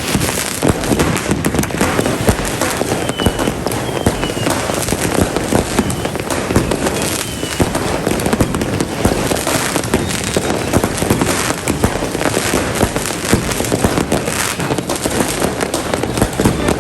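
Fireworks going off without a break: a dense, continuous crackle of overlapping pops and bangs, many bursts at once.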